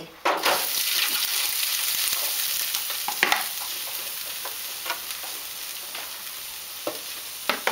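Shredded pork tipped into hot oil in an aluminium foil roasting pan, sizzling with a sudden start and slowly dying down. A spoon stirring it scrapes and clicks against the foil a few times.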